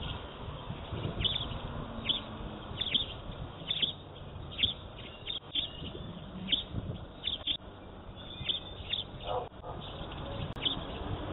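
Small songbirds chirping: short, high chirps falling in pitch, about one or two a second, over a low background rumble.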